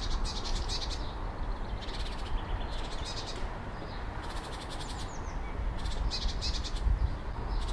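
Outdoor ambience: a steady rushing background with about seven short bouts of high, fast-pulsed chirping, a second or so apart.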